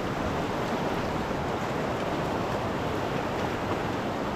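Creek water rushing steadily, an even unbroken hiss.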